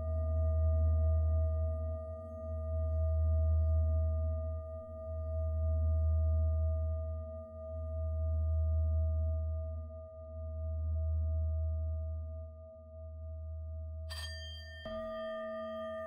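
Singing-bowl meditation music: bowls ring steadily over a low drone that swells and fades about every two and a half seconds. Near the end a new bowl strike starts a fresh ring.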